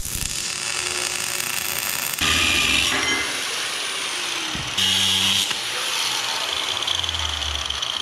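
Electric arc welding crackling on steel, then a handheld angle grinder with a flap disc grinding the welds on the steel plate. It comes as short clips cut together, so the sound changes abruptly several times, with a high steady whine in the grinder stretches.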